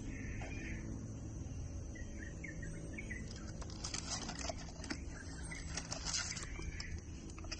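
Birds chirping over a steady low hum, with a few seconds of crackling clicks in the middle.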